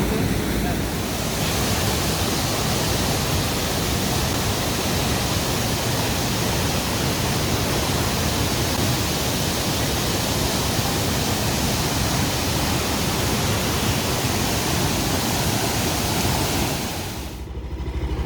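Steady rushing of a waterfall or fast stream, an even roar with no break, that cuts off suddenly near the end.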